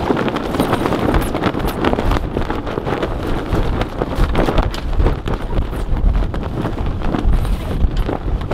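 Wind buffeting the microphone with a steady low rumble, over the crackling rustle of sailcloth as a Wharram wingsail is hauled up the mast by hand.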